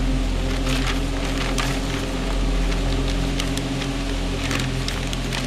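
A large paper map crackling and rustling as it is unfolded and handled, a string of short, sharp crinkles, over a steady low drone of background music.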